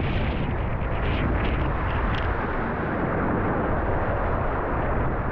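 Strong wind buffeting an action camera's microphone over the rush of breaking surf and water around a kayak, a steady noise with a few faint splashes.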